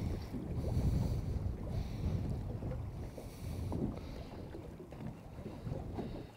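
Wind buffeting the microphone over choppy sea, a steady low rumble, with water sloshing against a small boat's hull in washes of hiss that come and go.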